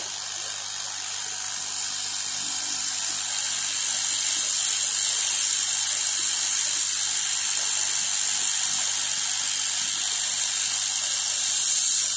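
Hot-air rework station blowing a steady, high-pitched hiss of hot air onto a hard-drive circuit board to desolder a small diode and a zero-ohm resistor.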